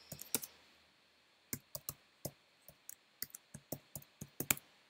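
Typing on a computer keyboard: a few quick keystrokes at the start, a pause of about a second, then a run of irregular keystrokes.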